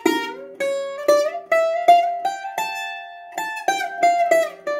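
Bouzouki picked one note at a time, about a dozen notes climbing step by step and then coming back down: the hijaz (chijaz) dromos, played from the fifth note of the harmonic minor.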